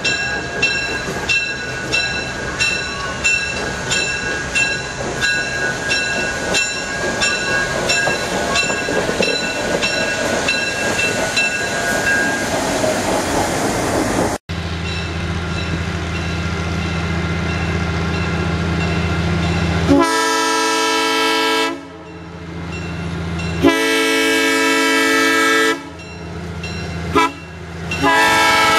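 Diesel locomotive bell ringing steadily, about two strokes a second. After a cut, the locomotive's diesel engine is running and its horn sounds the grade-crossing signal: two long blasts, a short one, and a final long blast that begins near the end.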